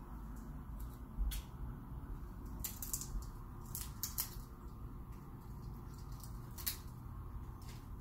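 Indian ringneck parrot's beak clicking and tapping on a hanging plastic foraging ball as it tries to get a treat out: a few scattered clicks, bunched in the middle.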